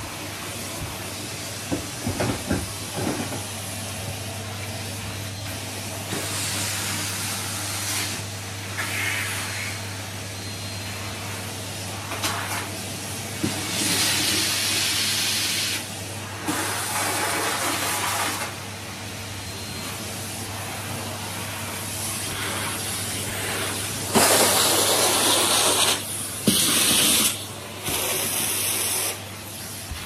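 Numatic Henry cylinder vacuum cleaner running as its hose works over a carpet: a steady low motor hum under a rushing hiss of suction that swells in several bursts, loudest near the end. A few clicks come about two seconds in.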